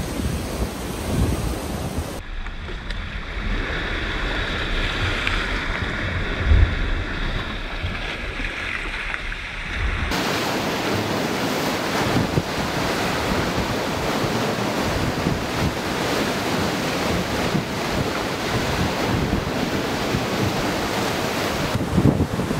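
Hurricane wind buffeting the microphone over heavy storm-surge surf, with waves breaking against a wrecked wooden dock. The noise changes abruptly about two seconds in and again about ten seconds in.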